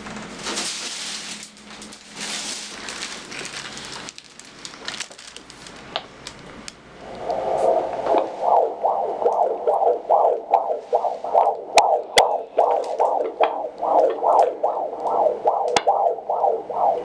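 Fetal Doppler monitor: a few seconds of hissing, scraping static as the probe is moved over the belly, then from about seven seconds in the unborn baby's heartbeat as fast whooshing pulses, a little over two a second.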